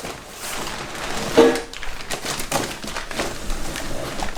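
Cardboard box and packaging being handled and rustled as a metal chassis brace is taken out, with one louder knock about a second and a half in.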